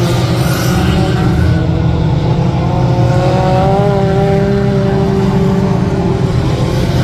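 Mini-truck race engines running hard around a dirt oval. About two and a half seconds in, one engine's pitch rises as it accelerates, then holds steady.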